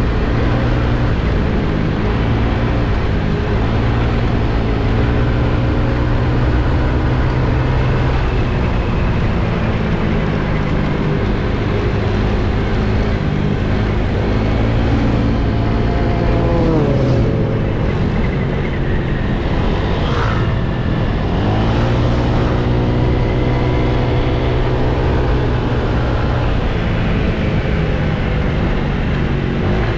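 Scooter engine running under way at road speed, with a steady rush of wind and road noise. The engine note drops about halfway through as it eases off, then climbs again a few seconds later as it picks up speed.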